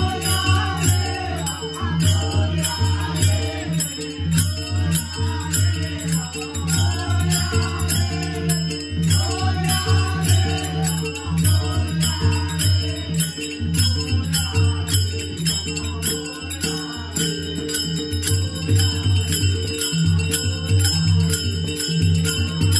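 Devotional bhajan: men singing in chorus to a harmonium, with a two-headed barrel drum keeping the beat and small hand cymbals ringing steadily on the rhythm.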